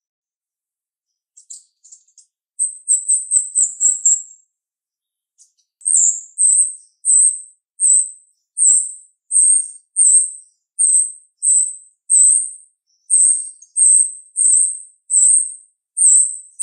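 Female jalak rio-rio (finch-billed myna) calling in sharp, very high-pitched notes. First comes a quick rattling run of about eight notes, then a steady series of single sharp chirps, about three every two seconds.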